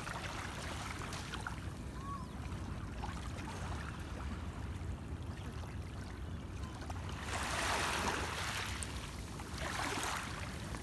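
Shallow sea water lapping gently at a sandy beach over a steady low rumble, with two louder washes of water, one about seven seconds in and a shorter one near the end.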